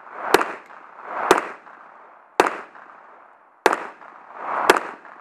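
Five pistol shots fired at a steady pace, about one a second, each trailing off in an echo.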